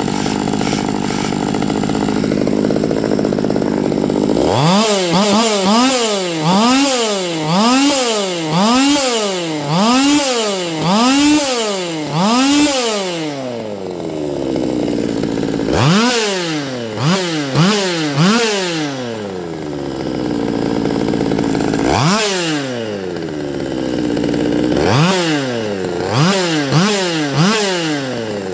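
A small two-stroke chainsaw engine running and being revved over and over, its pitch climbing and dropping about once a second. It settles back toward idle a few times in between, after a steadier drone at the start.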